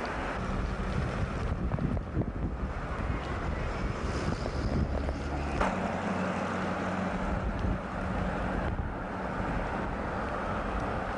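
Vehicle engine and road noise mixed with wind on the microphone, a steady rushing noise with a low hum that shifts abruptly a few times.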